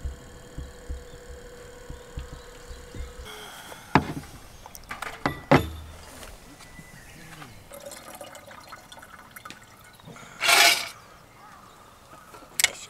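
Camp cooking gear being handled: several sharp knocks and clatters of metal and wood. Then, about ten seconds in, a brief rush of water being poured. Faint bird chirps can be heard over low thumps before the handling starts.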